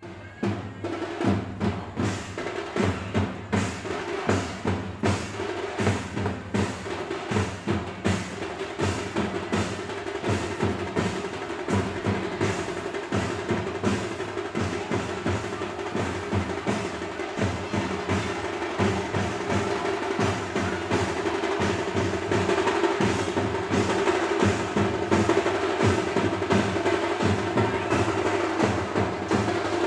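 Indian festival drums playing a fast, dense rhythm, the strokes coming in a steady unbroken stream.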